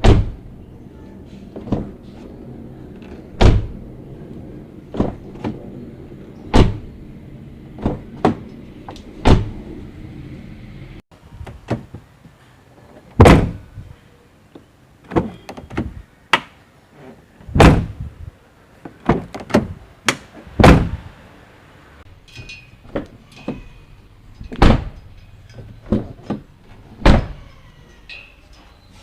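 Car doors being opened and slammed shut again and again: a long series of separate sharp thuds. A steady low hum sits under the first eleven seconds or so and then stops.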